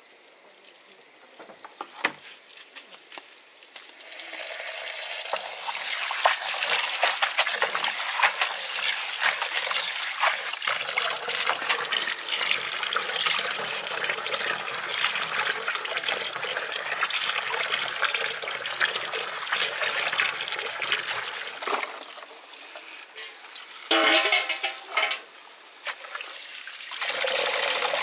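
Water running from an outdoor tap and splashing into a basin of fiddlehead fern greens as they are washed by hand. The flow starts about four seconds in and eases off after about twenty-two seconds. A brief splash follows, and the water runs again near the end.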